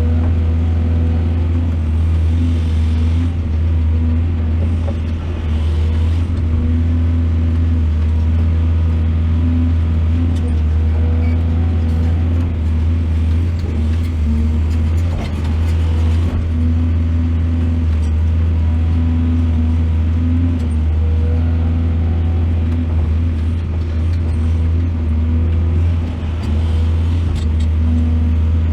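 Heavy diesel engine of a mining excavator running steadily with a deep, even drone.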